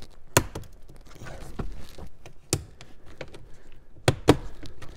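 Sharp plastic clicks and knocks of a car's dashboard trim and climate control panel being worked loose from its clips. There is a handful of separate clicks with light taps between, and two loud ones close together near the end.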